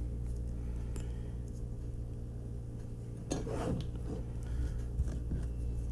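A few light clicks and clinks of a diecast toy car's small metal and plastic parts being handled, with a cluster of them about three and a half seconds in, over a steady low hum.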